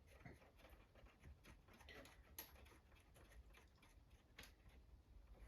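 Near silence with a few faint, scattered metallic ticks and clicks: a nut being run on by hand onto the suspension, finger tight.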